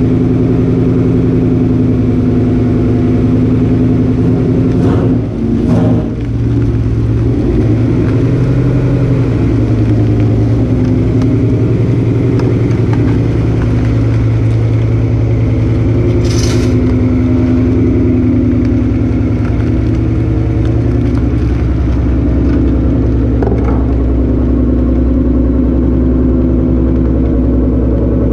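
S550 Mustang GT's 5.0 V8 idling steadily after a cold start, with a brief dip in the sound about five seconds in and a short click partway through.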